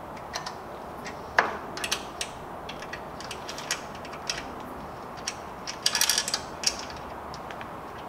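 Irregular metallic clicks and clinks of a wrench and bolts against a strut-tower bar bracket as it is bolted down, with a sharper knock about a second and a half in and a quick run of clicks about six seconds in.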